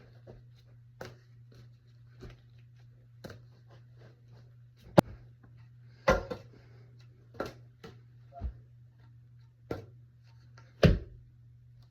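Plastic toy guns being handled: scattered clicks and clacks, with one sharp click about five seconds in and a heavier knock near the end, over a steady low hum.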